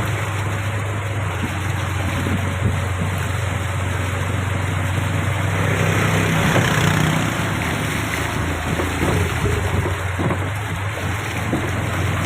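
A car driving through a flooded street: a steady low engine hum under a constant rush and splash of water against the car.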